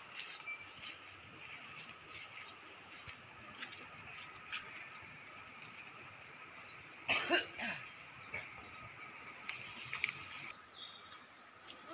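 Steady high-pitched insect trilling that drops away about ten and a half seconds in, with a short pitched call breaking in about seven seconds in.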